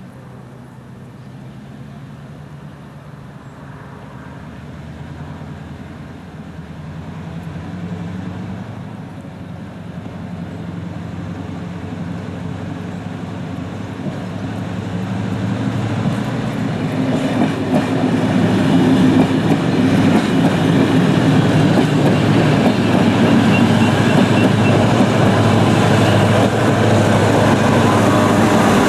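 Train hauled by a GM diesel locomotive approaching, its engine drone getting steadily louder over about eighteen seconds and then staying loud as it runs close by, with wheels clicking over the rail joints.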